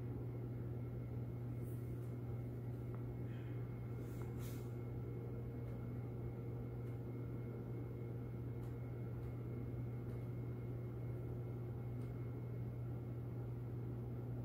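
A steady low hum with faint room noise, and a few faint ticks around two and four seconds in.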